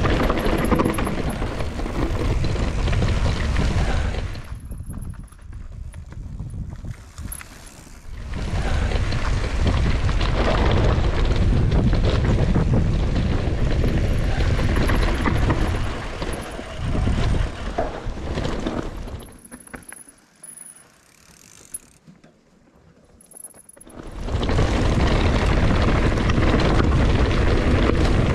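Mountain bike riding down a dry dirt singletrack: wind buffeting the bike-mounted camera's microphone, with tyre noise and rattle from the bike. It drops away twice for a few seconds, about a quarter of the way through and again about two-thirds through, leaving quieter freewheel ticking.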